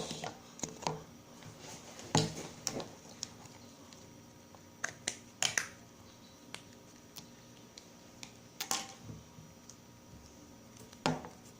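Irregular small clicks and taps of plastic play-dough tools and pots being handled on a tabletop, with a few louder knocks spread through.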